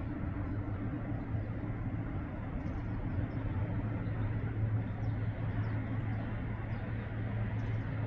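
Steady low mechanical hum over a wash of background noise, with a few faint high chirps from small birds.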